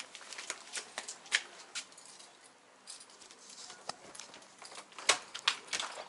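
Footsteps of sandals on a porch floor: a series of irregular sharp taps, the loudest about five seconds in.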